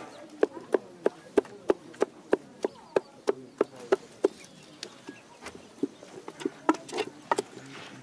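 Fritter dough being beaten by hand in a bowl: regular slapping strokes about three a second, turning irregular about halfway through.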